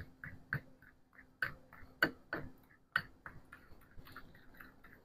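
Metal spoon stirring a thick mix of brown sugar and barbecue sauce in a bowl, clicking and scraping against the bowl about three times a second, fainter near the end.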